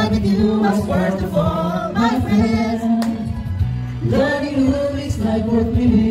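Music: a song with sung vocals, long held notes over its accompaniment.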